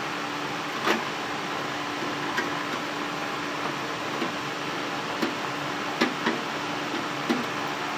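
Scattered light clicks and taps from hands working on a toaster oven's metal casing, about eight in all, the sharpest about a second in and about six seconds in, over a steady background hum.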